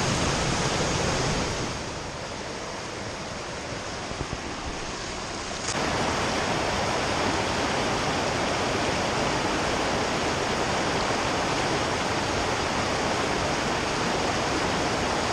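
Creek water rushing steadily over rocks in a shallow riffle. It drops quieter for a few seconds, then steps back up suddenly about a third of the way in.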